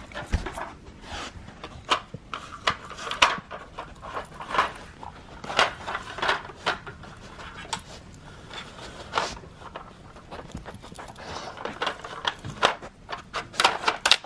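Golden retriever puppy panting as it noses and paws at a plastic treat-puzzle toy. Its sliding plastic pieces clack and knock in irregular taps.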